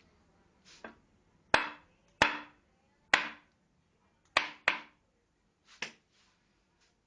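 Irregular sharp knocks on wood, about seven, each with a short ringing tail, the loudest in the middle of the series.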